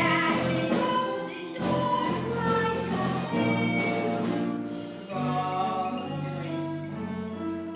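A show tune from a stage musical: several voices singing together over instrumental accompaniment.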